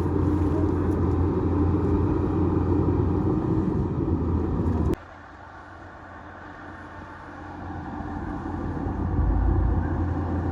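Heavy diesel engine of a bulldozer running steadily. About five seconds in, the sound cuts off abruptly to a much lower level. It then grows steadily louder again over the next few seconds.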